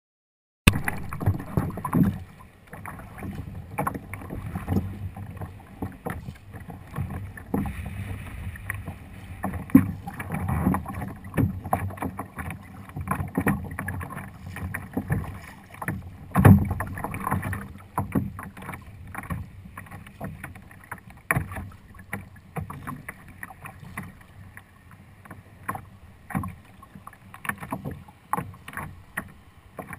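Choppy water slapping against a plastic Hobie kayak hull, with wind buffeting the microphone and frequent irregular knocks. It starts abruptly just under a second in.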